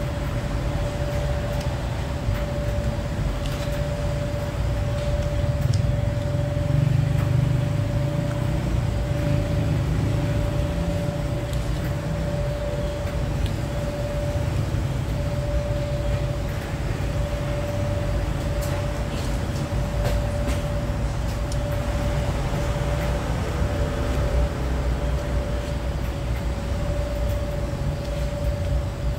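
Steady low rumble of street traffic with a constant hum held on one pitch, and a few faint light clicks.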